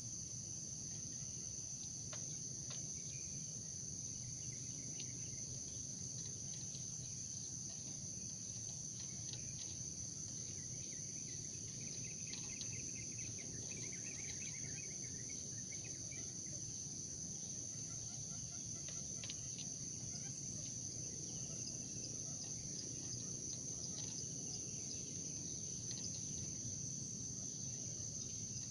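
Steady high-pitched chorus of crickets and other insects. A few faint short bird calls come through now and then, with a longer run of them about halfway through.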